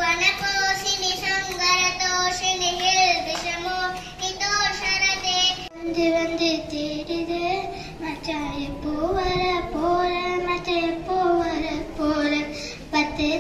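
A young child singing a song solo, holding long notes, with a sudden break about halfway through.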